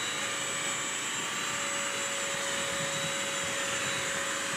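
BISSELL Crosswave multi-surface wet/dry vacuum running steadily: an even rush of suction with a constant motor whine, as it scrubs and sucks up spilled applesauce and soup from a hard floor.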